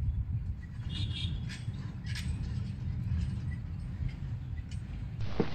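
Steady low outdoor rumble with a few faint, short high-pitched chirps about one to two seconds in.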